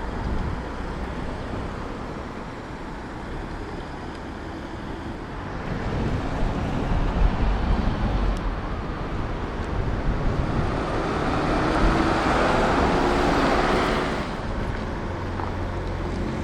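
Road traffic, with a vehicle passing close by: the tyre and engine noise swells and is loudest from about ten to fourteen seconds in, then falls away suddenly.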